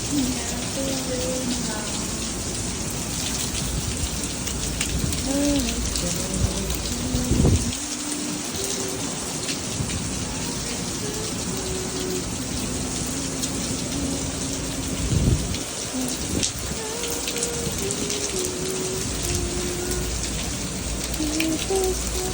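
Steady rain falling, with faint voices underneath and two brief low thumps, about seven and fifteen seconds in.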